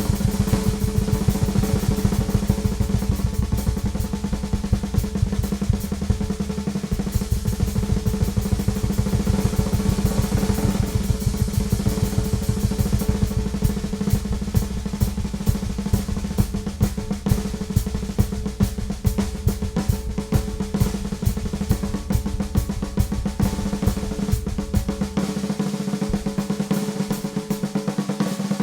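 Ludwig Classic Maple drum kit played solo: fast, dense strokes and rolls on the snare drum (a Ludwig Supraphonic) with bass drum underneath. The bass drum drops out near the end.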